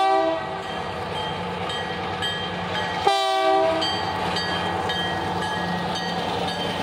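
Indiana Harbor Belt switcher locomotive's multi-chime horn sounding and cutting off just after the start, then one short blast about three seconds in, with the diesel engine running and wheels clicking over the rail joints as it passes pulling tank cars.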